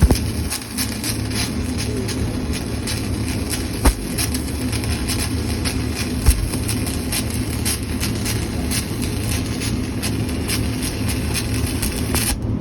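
Stick welding arc crackling steadily as the electrode burns, over a steady low hum, with a few sharp pops: one at the start, one about four seconds in and one about six seconds in.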